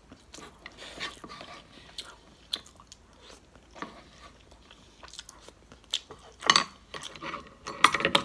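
Close-miked chewing and biting of orange shrimp, a run of short crunching and mouth sounds, the loudest about six and a half seconds in and again near the end.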